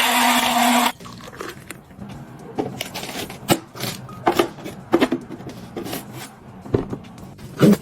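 A small motor-driven gadget running with a steady whirr and hum, cutting off abruptly about a second in, then objects being handled: scattered clicks, knocks and scrapes, with a louder knock near the end.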